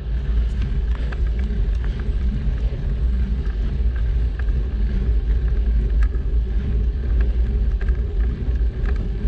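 Steady low rumble of wind and road noise on a GoPro action camera carried on a moving bicycle, with a few faint ticks scattered through it.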